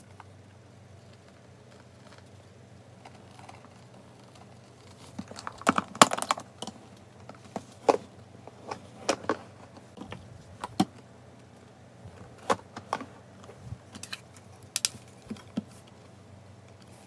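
Hard plastic clicks and taps from a plastic hamster carrier and a plastic kitchen scale being handled: a quick cluster about six seconds in, then single clicks every second or so until near the end, over a faint steady hum.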